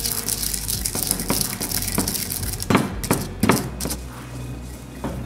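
Stone pestle grinding dried azafrán in a volcanic-rock molcajete: gritty scraping and crunching, with a few sharp knocks of stone on stone about three seconds in and softer grinding near the end.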